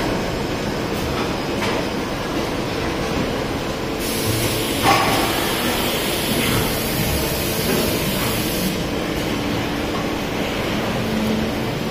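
Automatic plastic-spoon moulding and packaging line running: a steady machine noise with occasional clicks and a sharp knock about five seconds in, and a hiss from about four seconds in until nearly nine seconds.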